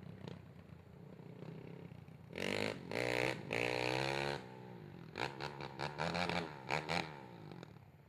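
Racing ATV engine idling low, then revved hard for about two seconds a couple of seconds in, followed by half a dozen short throttle blips that each fall away.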